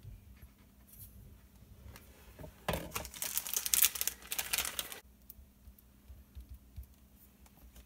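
A stack of paper sheets rustling and crinkling as it is handled close by for about two seconds from a little under three seconds in, with faint taps and clicks of paper and a glue bottle being set down around it.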